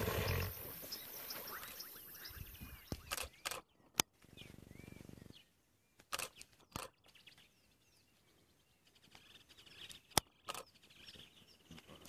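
A hippo surfacing in the water, with a loud low burst of sound right at the start. After that, birds chirp softly, with scattered sharp clicks.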